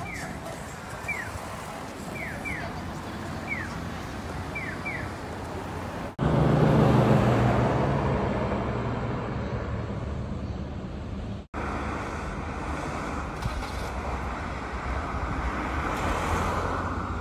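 Street ambience with a pedestrian crossing signal's electronic chirps: short falling notes, single or in pairs, about once a second. About six seconds in it switches to a louder, deep, steady rush of wind on the microphone beside road traffic.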